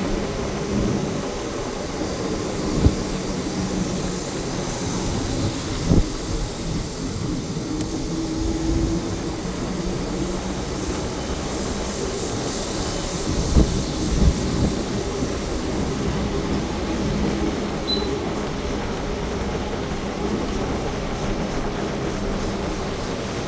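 Inside a moving city bus: steady engine hum and road noise, with a few sharp thumps from the cabin and body.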